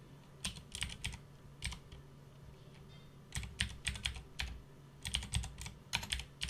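Typing on a computer keyboard: quick runs of key clicks in three bursts, with a pause of over a second between the first and second.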